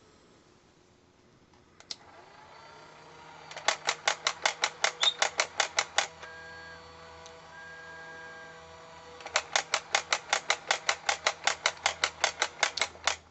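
Casio AC-200 robot alarm clock going off: a rapid electronic beeping at about six beeps a second over a steady motor hum, breaking off for a few seconds of hum alone, then starting again and cutting off suddenly near the end.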